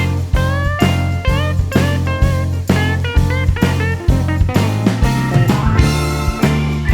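Background music: electric guitar with bending lead notes over bass and a steady drum beat, in a blues-rock style.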